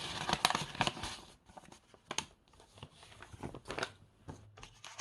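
A paper letter envelope being torn open and its contents handled, with irregular crinkling and rustling, busiest in the first second.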